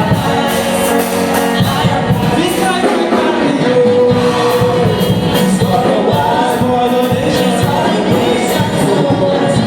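Gospel worship song: voices singing over band music with a steady beat.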